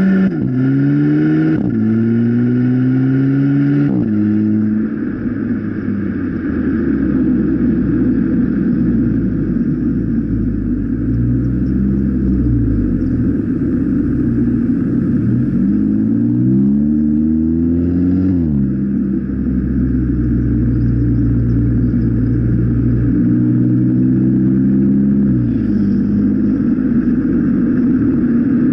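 Golf MK7 1.4 TSI turbocharged four-cylinder, its rear muffler removed for a 3-inch GTI-style Y-pipe, heard close to the tailpipe. It is revved several times, the pitch climbing and then dropping back to a deep idle between blips.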